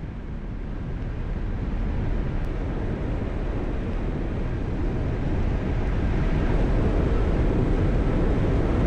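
Wind rushing over the bike-mounted camera's microphone, mixed with tyre noise on asphalt, as a loaded touring bicycle rolls along the road. The rush grows steadily louder as the bike picks up speed.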